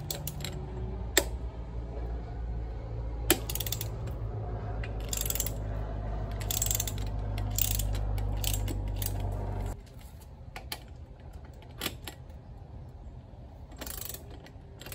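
Socket wrench clicking and ratcheting on the 22 mm rear axle nut of a Honda CB1100 as the nut is loosened, in scattered sharp clicks. A steady low hum runs beneath for the first ten seconds or so and stops suddenly.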